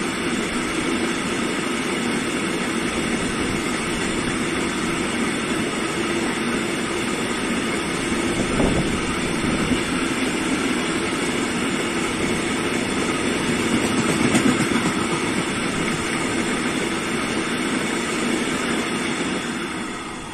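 Freight train of high-sided open wagons rolling past on the rails: a steady rumble and rattle of wheels and wagon bodies, with a couple of louder bangs about nine and fourteen seconds in, fading near the end as the last wagons go by.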